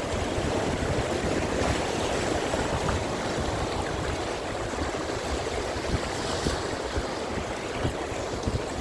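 Ocean surf washing and rushing against the rocks of a jetty at a tidal inlet, a steady noise, with wind rumbling on the microphone.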